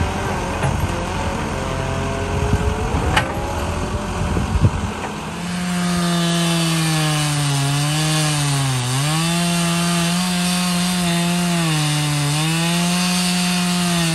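A backhoe's diesel engine runs and briefly revs for the first few seconds. Then a gas chainsaw runs near full throttle, cutting through a big red oak log, its pitch dipping a few times as the chain bogs down under load in the cut.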